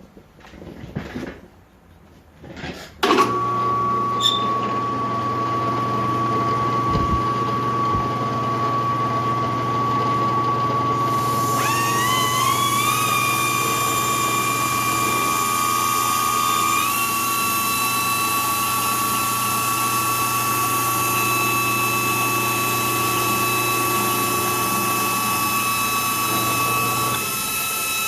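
Drill press motor switched on about three seconds in, running with a steady hum and whine. From about eleven seconds in a high grinding whine joins and rises in pitch in two steps as the chuck jaws are ground true to cure their runout; the low hum stops near the end.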